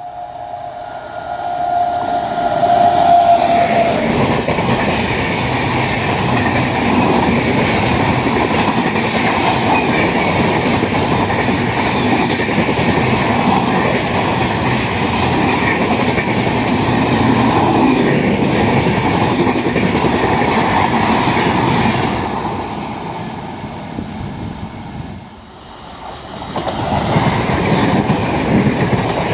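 Indian Railways train horn sounding a steady two-tone blast for about three seconds, followed by a passenger train running past at speed with loud wheel-on-rail rumble and clickety-clack. The noise fades away after about 22 seconds, then rises loudly again near the end as another train comes through.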